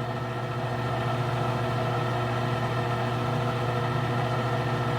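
Metal lathe motor running steadily at slow speed, power-driving a bottoming tap through a short spacer pin. It runs as a low, even hum with a higher whine above it.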